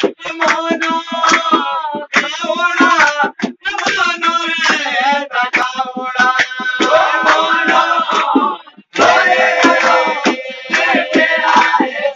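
Pahari folk song playing: singing over a steady drum beat, cutting out briefly about nine seconds in.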